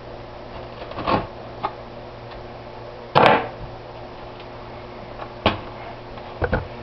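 Cardboard shipping box being handled and opened with a kitchen knife: a few short knocks and scrapes, the loudest about three seconds in as the knife is put down on the countertop. A low steady hum runs underneath.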